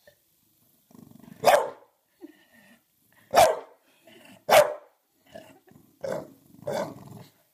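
English bulldog barking at its own reflection in a mirror: three loud single barks spaced a second or two apart, then two softer barks near the end, with a low rumble just before the first bark and under the last two.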